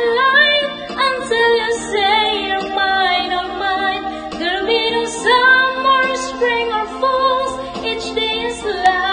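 A woman singing a melody with long held notes into a handheld karaoke microphone.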